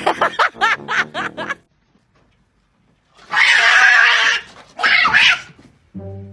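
An animal calling: a quick run of short rising-and-falling cries, then, after a pause, two loud harsh noisy cries.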